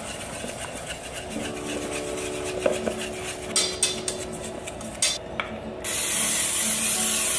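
Wire whisk scraping and clattering around a stainless steel bowl, stirring a dry, crumbly almond-flour mix, for about five seconds. Then an aerosol can of cooking oil spray hisses steadily for the last second and a half.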